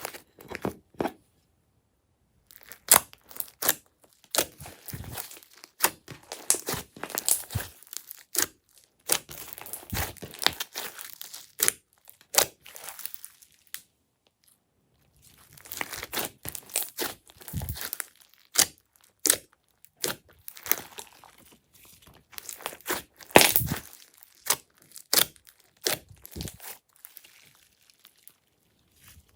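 Glossy slime being squished and worked by hand: irregular runs of sharp sticky pops, clicks and crackles, with two short pauses, one about two seconds in and one about halfway through.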